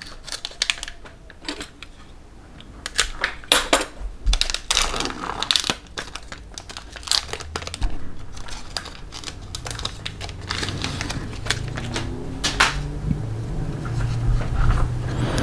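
Crinkling and rustling of a foil trading-card pack and its cards being handled, with many irregular small clicks and crackles.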